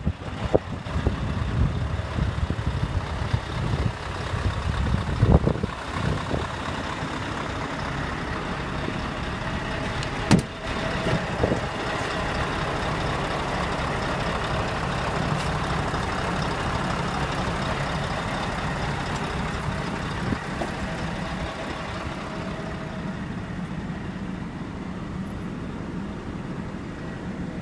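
Scania R520's V8 diesel engine idling steadily, with a few brief knocks in the first half.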